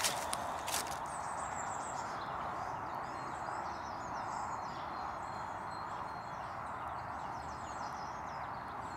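Small birds singing faintly in short chirping phrases over a steady hiss of outdoor background noise, with a couple of sharp clicks in the first second.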